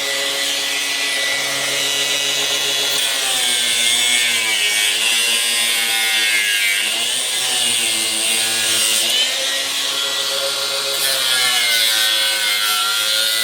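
Angle grinder cutting into a lead-acid car battery around its negative terminal. The motor pitch sags and recovers several times as the disc bites and eases off, with a steady gritty hiss of cutting, and it stops at the very end.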